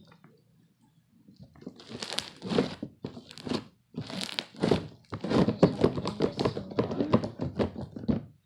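Slime being worked by hand, squeezed and poked, giving bursts of crackly, popping squelches. It starts about a second in, comes in short bursts, then runs on continuously over the last few seconds.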